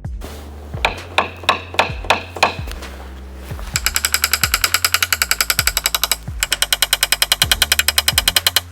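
Knockdown tool being tapped against a car's sheet-metal quarter panel to level high spots during paintless dent repair: a few separate taps, then two long runs of rapid, even taps with a short pause between. Background music runs underneath.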